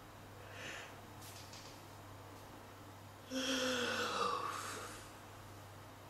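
A girl yawning: a faint breath, then a long voiced yawn about three seconds in that falls in pitch as it fades.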